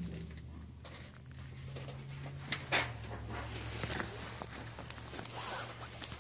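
Rustling and crinkling of a plastic-wrapped package of dog chews being handled, with two sharper crackles about two and a half seconds in, over a steady low hum.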